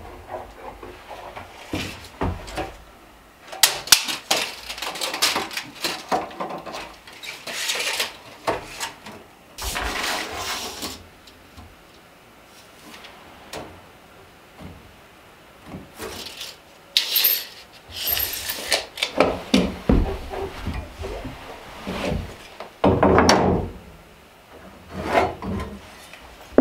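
Wooden boards being handled on a workbench counter: irregular knocks, scrapes and rubs as long planks are shifted, measured and marked, with a few sharp knocks of wood set down.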